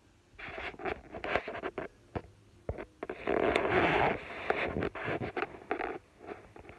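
Rustling handling noise of a phone being moved and brushed against blanket fabric and rabbit fur close to its microphone, a run of scratchy rustles and small clicks, loudest about halfway through.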